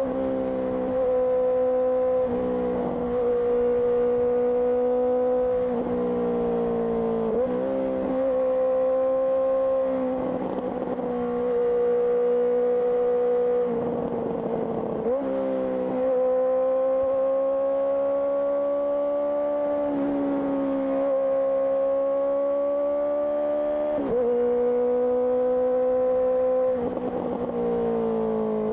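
Honda CBR650R's inline-four engine through an IXIL IXRACE aftermarket exhaust, running at a steady cruising pitch while riding. The note rises slowly in places and is broken by several brief dips and changes, about every few seconds.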